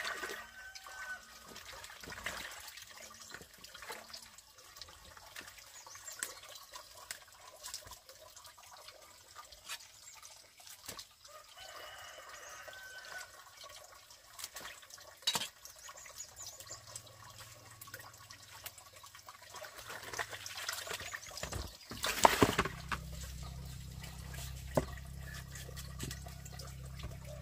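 Water trickling and splashing with scattered small knocks, and a hen clucking now and then. Past three quarters through there is a loud clatter, after which a low steady hum sets in.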